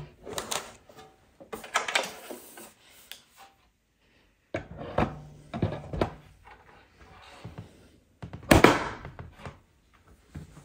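Knocks, clicks and thunks as IKEA Maximera drawer parts, a steel side and a particleboard bottom panel with metal fittings, are handled and fitted together. The hits come in small clusters, and a single heavier thunk late on is the loudest.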